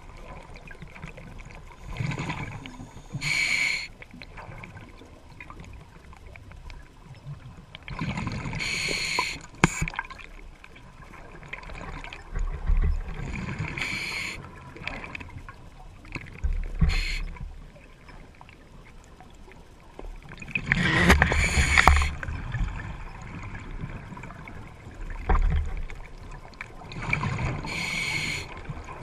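Underwater sound of scuba breathing through a regulator: short hissing inhalations every few seconds, with bubbling and gurgling exhalations between them.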